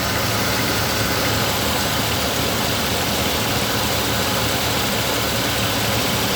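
A vehicle engine idling steadily, a constant low hum with no changes in speed.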